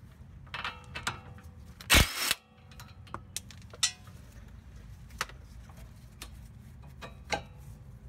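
Ryobi cordless impact wrench with a 17 mm socket briefly spinning a sway bar end link nut off its stud about two seconds in, the loudest sound here, followed by scattered sharp metal clicks and clinks as the nut and link are handled.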